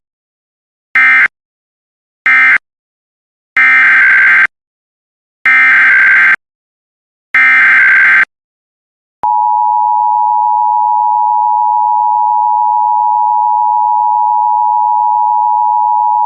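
Emergency Alert System data bursts: three short bursts closing the previous alert, then three longer header bursts for the next alert, followed about nine seconds in by a steady attention tone.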